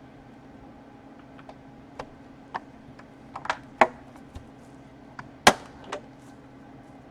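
Laptop casing parts being handled and pressed together: a series of about ten irregular clicks and knocks, the loudest about five and a half seconds in.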